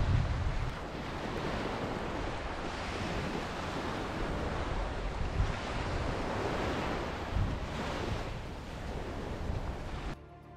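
Sea waves breaking and washing up on the shore, surging every two to three seconds, with wind rumbling on the microphone in the first second. The surf cuts off suddenly near the end.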